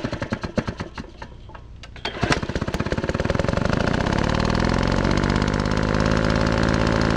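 An engine clattering at first, then starting about two seconds in and running steadily, its speed rising briefly and then holding.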